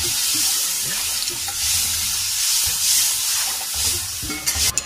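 Water sizzling in hot ghee and roasted semolina for suji halwa, stirred with a wooden spoon in a metal karahi, the hiss swelling and easing with each stroke about once a second. A few sharp clicks near the end.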